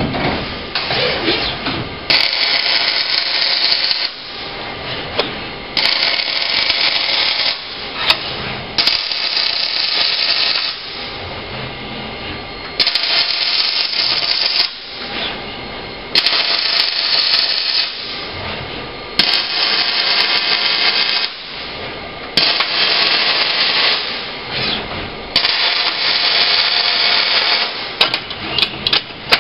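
Robotic MIG welder laying a run of short welds: about eight bursts of steady arc hiss, each around two seconds long, with short pauses between welds.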